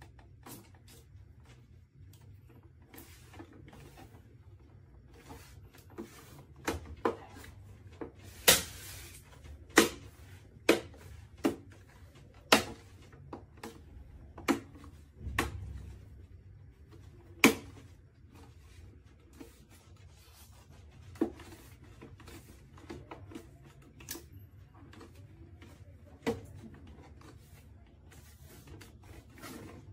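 Hands handling the parts of an all-in-one computer during a screen replacement: a string of sharp clicks and taps, busiest in the first half, over a low steady hum.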